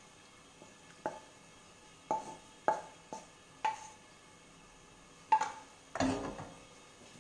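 Ravioli being served from a frying pan onto a ceramic plate: a wooden spatula knocking and clinking against the pan and plate about seven times. Several of the clinks ring briefly, and the loudest come near the end.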